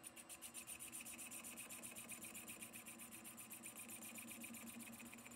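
Colchester metal lathe turning a short length of stainless steel tube while the tool faces its rough-sawn end square: a faint, even, rapid ticking, about a dozen a second.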